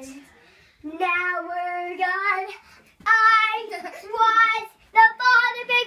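A child singing held, wavering notes without clear words: a first phrase starts about a second in, then a short pause and longer, higher notes follow.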